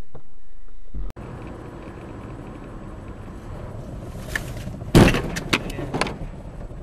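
Car road noise, broken by an abrupt cut about a second in. About five seconds in comes a loud sudden impact, followed by several sharp knocks within the next second: a vehicle collision.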